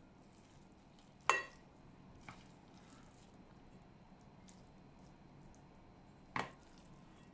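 Kitchenware clinking: a sharp clink about a second in, a softer knock a second later, and another sharp clink near the end, over a low steady room background.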